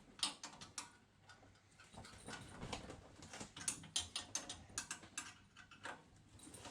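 Irregular light clicks and taps of hand work on drum-brake parts: metal pieces and tools being handled and fitted, a few sharper ticks among them.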